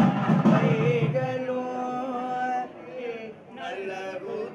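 Several male voices chanting Hindu mantras in unison, in long held notes. A low rumble sounds under the chant in about the first second.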